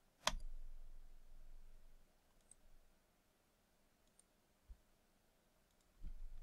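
A single sharp computer mouse click about a third of a second in, a few faint clicks in the middle, then rapid keyboard typing starting near the end.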